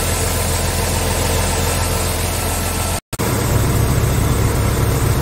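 Scania S tractor unit's 450 hp Euro 6 six-cylinder diesel idling steadily. The sound cuts out for an instant about three seconds in and comes back with a stronger low rumble.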